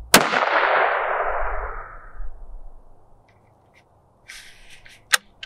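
A single shot from a .243 Winchester Remington Model 700 bolt-action rifle just after the start, its echo rolling away over about two seconds. Near the end come a few sharp metallic clicks and short scraping sounds.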